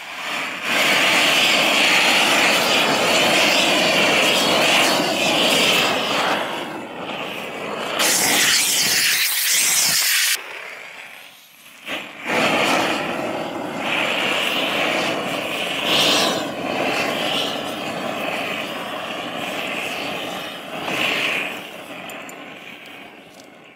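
Propane weed-burner torch burning with a loud, steady rushing noise as it chars a wooden board. There is a sharper hiss briefly about a third of the way in, and the noise drops away for a moment about halfway through before coming back.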